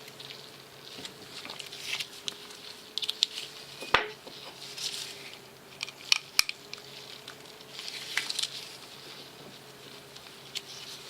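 Small metal knife parts and tools being handled on a work surface: scattered light clicks and taps with soft scraping and rustling, the sharpest click about 4 s in and two more about 6 s in.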